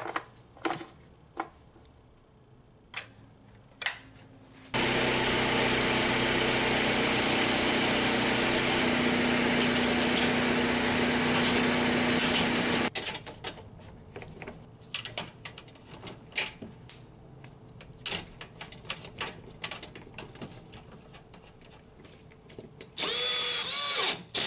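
Cordless drill-driver spinning up with a rising whine and running steadily for about a second and a half near the end, driving a fastener into the engine undertray. Earlier comes a loud, steady, hissing noise lasting about eight seconds, which starts and stops abruptly, between scattered clicks and knocks of parts being handled.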